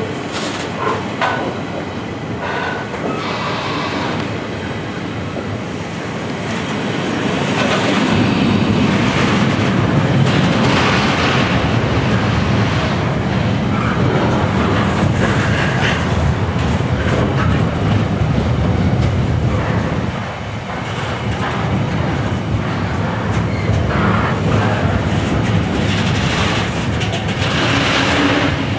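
Loaded container wagons of a freight train rolling past, their wheels running on the rails in a continuous noise that grows louder about eight seconds in.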